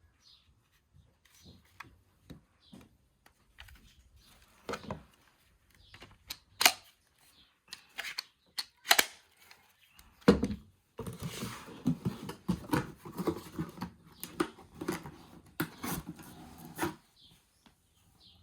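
Scattered sharp clicks and knocks of objects being handled, with a busier stretch of clattering from about eleven to seventeen seconds in.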